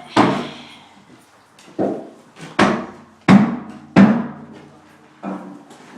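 Six hollow knocks or thuds at uneven spacing, each ringing briefly with a low tone before dying away; the fourth and fifth are the loudest.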